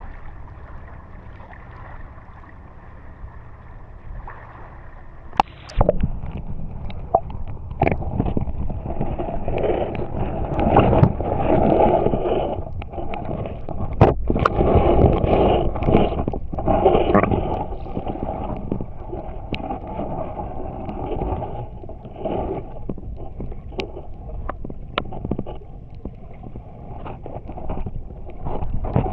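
Steady low noise of shallow water at the shoreline, then, after a click about five and a half seconds in, muffled underwater sloshing and gurgling heard through a submerged camera, with scattered clicks and knocks.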